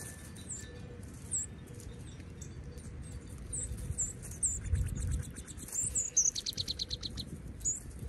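Wild songbirds calling: short, high chirps repeated throughout, and a fast trill of about a dozen notes, lasting around a second, a little past the middle.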